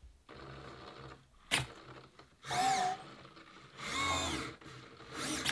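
Clicbot modular robot moving: a faint motor whir, a sharp click about one and a half seconds in, then two louder electronic sounds that sweep up and down in pitch, at about two and a half and four seconds in.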